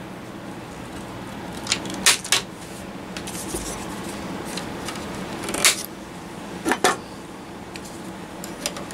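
Wire cutters snipping through the wire leads of old electrolytic capacitors at a tube amp's terminal board: several sharp snips, some in quick pairs. The failed caps are being clipped off close to the terminals rather than desoldered.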